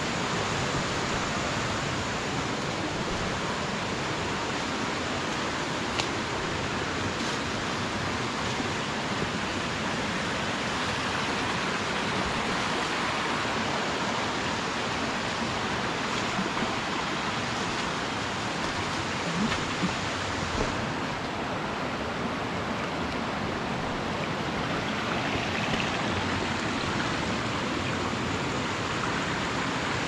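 Steady rush of water flowing over the rocks and small cascades of a forest stream below a waterfall, even and unbroken, with a few faint knocks.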